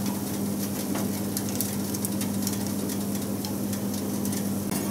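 Salted himemasu (kokanee salmon) fillets sizzling steadily on the wire rack of a countertop grill as they are turned over with chopsticks, with a few faint light clicks against the rack over a low steady hum.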